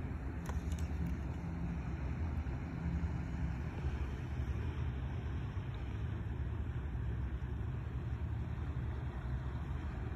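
Steady low rumble of a boat engine running at idle.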